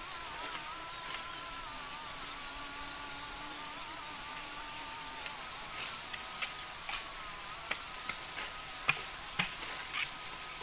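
Steady high-pitched drone of a tropical forest insect chorus, with faint held tones underneath and several sharp clicks in the second half.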